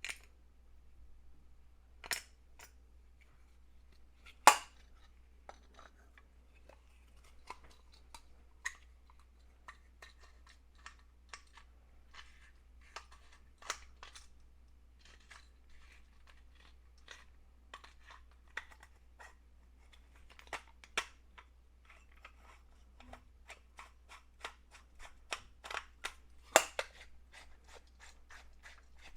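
Irregular small clicks and knocks of hard parts being handled and fitted together by hand, with sharper knocks about four and a half seconds in and again near the end, where the clicks come closer together.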